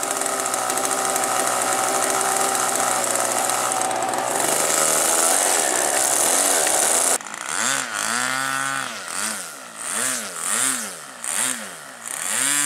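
Model airplane glow engine running on a freshly fitted glow plug, steady and close at first with its pitch climbing a little. About seven seconds in it sounds farther off and revs up and down over and over, about once a second.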